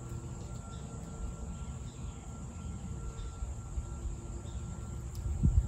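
Quiet forest ambience under a steady low drone, which the man takes for a leaf blower about half a mile off, with faint sounds down the slope that he takes for footsteps in dry leaves. A thin steady high tone runs throughout, and a low thump comes near the end.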